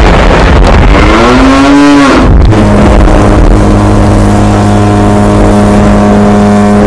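Very loud, noisy background sound of a motor-like din, deliberately laid over the video as an annoying background track. Its pitch rises about a second and a half in, then holds a steady drone to the end.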